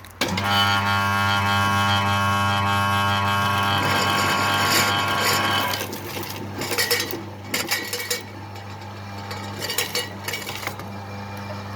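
MS-80 cable-stripping machine starting with a steady electric-motor hum and cutting through steel- and lead-armoured cable: a loud metallic whine for about six seconds, then quieter running with irregular clanking.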